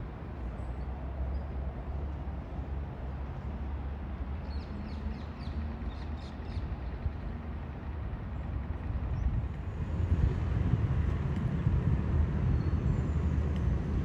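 Low outdoor rumble that grows louder about ten seconds in, with a few faint, high bird chirps around the middle.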